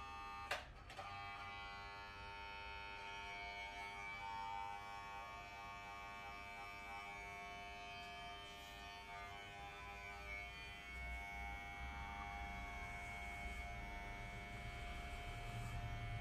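Electric hair clipper running with a steady buzz, a sharp click just after the start as it is handled or switched on.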